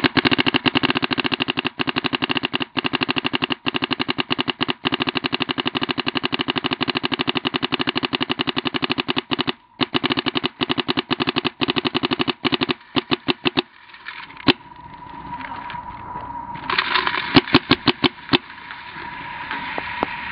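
Bob Long Victory electronic paintball marker firing on uncapped semi-auto: a fast, steady stream of shots for about thirteen seconds, broken once briefly a little before ten seconds in. Then a few scattered shots follow.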